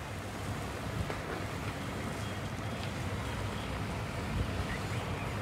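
Steady low rumble of boat outboard motors idling close by, with wind on the microphone.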